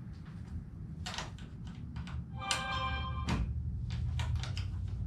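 Wrench or socket clicking and clinking on steel nuts and bolts as the shelf drawer bolts are tightened, a string of sharp irregular clicks with one ringing metal clink about halfway through.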